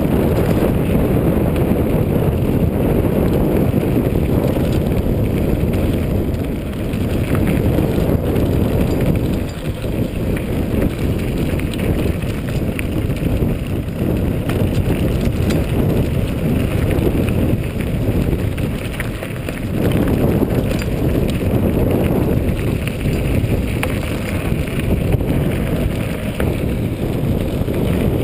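Mountain bike rolling downhill on a loose gravel dirt track: a steady low rumble of tyres on stones and the bike rattling, mixed with wind on the microphone. It eases briefly a few times.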